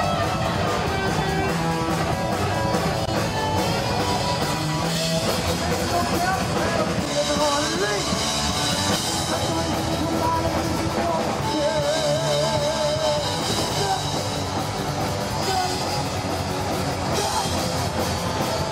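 Loud rock music with a drum kit and electric guitar, with wavering held notes over a dense, steady band.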